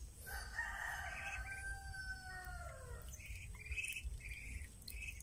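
A rooster crowing once, one long call of about three seconds that drops in pitch at the end, followed by a run of short high chirps about every half second.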